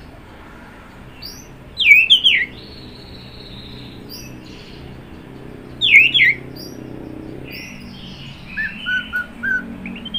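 Orange-headed thrush (anis merah) singing: two loud phrases of quick, sharply sweeping whistled notes about four seconds apart, then a quick run of four shorter, lower notes near the end, over faint high chirps and a steady hiss.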